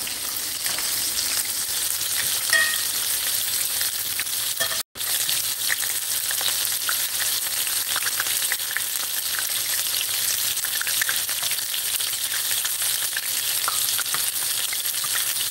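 Battered onion rings deep-frying in very hot grease in a cast-iron pot: a steady hissing sizzle full of fine crackles as a metal slotted spoon stirs and turns them. The sound cuts out completely for an instant about five seconds in.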